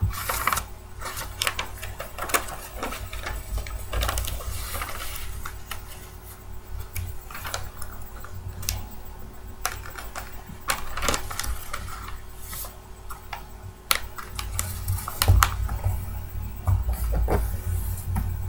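A sheet of paper being folded and creased by hand, with irregular rustling and sharp crinkles as the folds are pressed flat, over low thumps.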